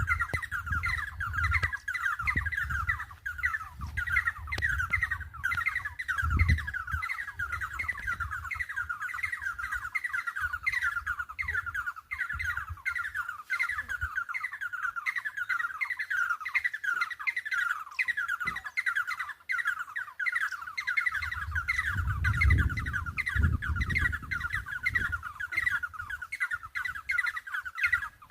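Small birds chirping without a break: many short, falling chirps overlapping several times a second. A low rumble sits under them through the first third and again about three-quarters of the way in.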